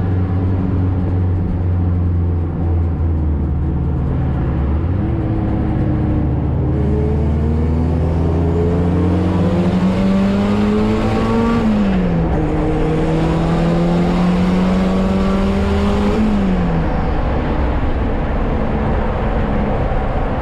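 Car engine accelerating through the gears: a steady drone for the first few seconds, then the revs climb, fall sharply with an upshift about twelve seconds in, climb again and fall with a second upshift a few seconds later before settling.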